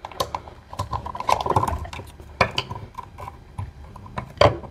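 Old outlet wiring being worked by hand in a wall box to free the ground wire: a run of small clicks, taps and scrapes, with one sharper click near the end.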